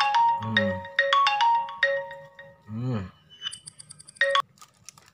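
A quick marimba-like melody of struck notes, like a mobile phone ringtone, with a brief higher tinkling run near the end before it stops. A short low 'mm' from a voice comes about three seconds in.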